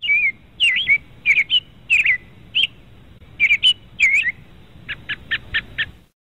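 Small birds chirping: short, warbling whistled calls in quick clusters, with a run of five quick, evenly spaced notes near the end.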